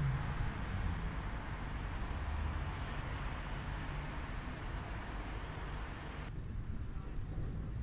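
Steady city traffic noise: a low rumble with a hiss over it, which drops away abruptly near the end.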